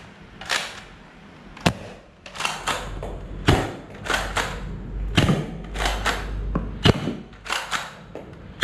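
X-Shot foam-ball pistol being loaded and fired: four sharp snaps, evenly spaced every second and a half or so, with scraping and rattling handling noise between them.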